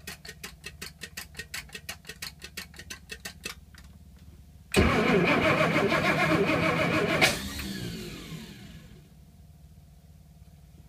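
Chris-Craft boat's inboard engine, two years unused, on a start attempt: after a run of rapid even ticking at about five a second, the engine starts suddenly about halfway in and runs loudly for about two and a half seconds, then cuts out and spins down with falling pitch.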